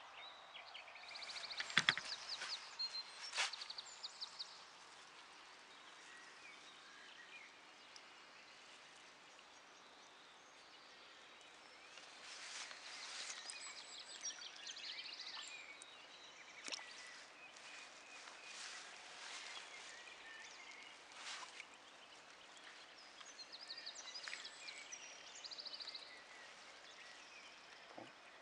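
Quiet outdoor ambience with birds calling in short, quickly repeated high trills, several times over. In between come scattered brief rustles and knocks from handling a carp in a fabric retention sling at the water's edge.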